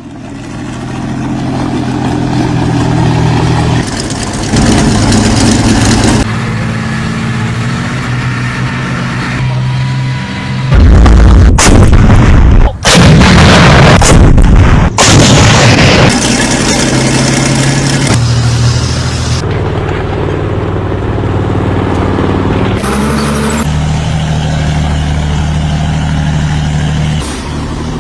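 Heavy engine of a German tracked vehicle running, its note stepping up and down several times. For about five seconds in the middle it is very loud, overloading the recording.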